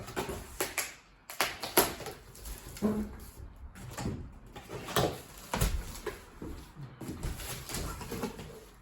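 Shipping box and packaging being opened and handled: irregular scrapes, rustles and knocks.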